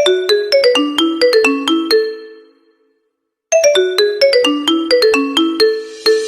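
Melodic phone ringtone: a quick run of about ten short, bell-like notes that rings out and fades, then plays again after a pause of about a second. A rising hiss comes in near the end.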